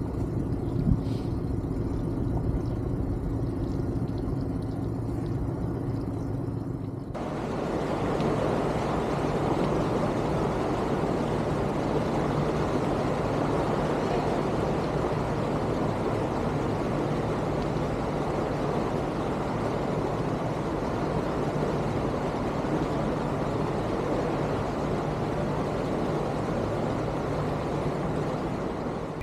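Motor vehicle engine running steadily. About seven seconds in the sound changes abruptly to a louder, steady rushing rumble.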